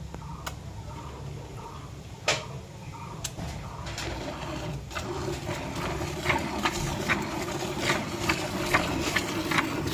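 Cow being milked by hand: rhythmic squirts of milk into a bucket, about two to three a second, getting louder from about halfway through. A single sharp knock comes a couple of seconds in.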